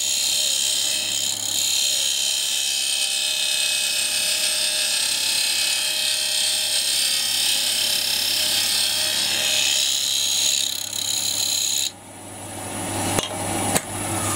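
Wood lathe running while a gouge cuts the spinning wooden box blank, a steady hiss of shavings over the motor's hum. The cut stops about twelve seconds in, leaving the lathe's hum, then two light clicks.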